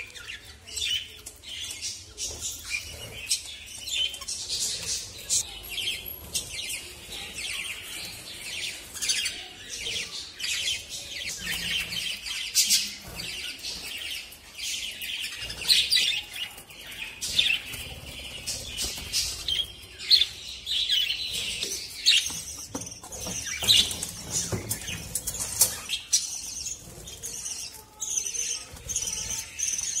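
A flock of budgerigars chattering and chirping: a continuous stream of short, high chirps and warbles from many birds at once.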